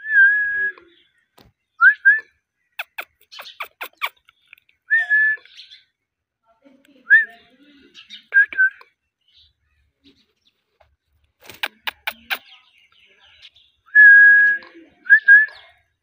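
Indian ringneck parakeet whistling: a string of short, clear whistles, each sliding up quickly and then held on one pitch, the longest near the end. Between the whistles come two runs of sharp clicks.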